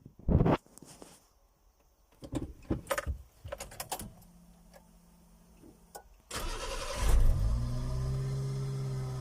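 A Subaru kei truck being started: several seconds of scattered clicks and knocks, then the starter cranks briefly about six seconds in and the engine catches with a short rev and settles into a steady idle.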